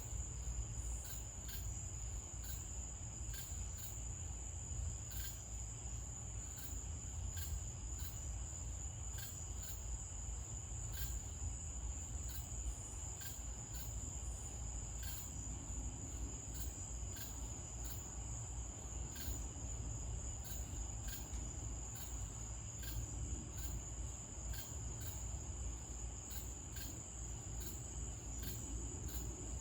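Night insects, crickets among them: a steady high-pitched trill, with short chirps ticking evenly about twice a second, over a low steady rumble.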